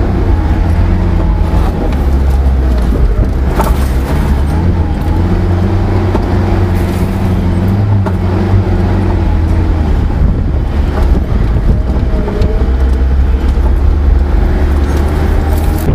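Four-wheel-drive vehicle driving up and over a sand dune: the engine's steady low drone with a shifting note, and a couple of brief knocks about four and eight seconds in.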